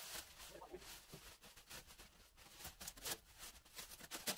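Faint, irregular rustling and snapping of cut branches and fronds being pushed down and packed onto a trailer load, with scattered sharper cracks about three seconds in and near the end.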